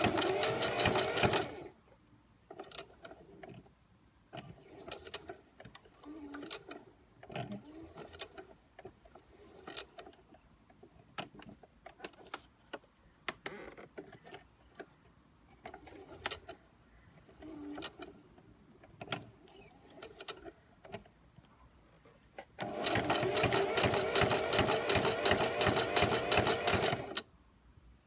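Singer Heavy Duty sewing machine zigzag-stitching a leather edge: a short run of rapid stitches at the start, scattered clicks and brief single stitches through the middle, then a steady run of fast, even stitching for about four seconds near the end.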